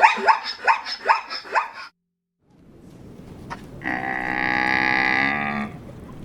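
A dog gives about six quick, high yelping barks, each dropping in pitch. After a short break, a different animal gives one long, steady, drawn-out call lasting nearly two seconds.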